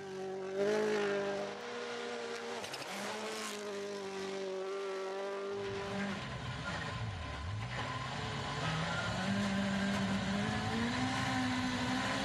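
Hyundai WRC rally car's engine at full throttle on a snow stage, its pitch stepping with the gear changes as it races past. It is then heard from inside the cockpit, dipping briefly and then climbing steadily as the car accelerates.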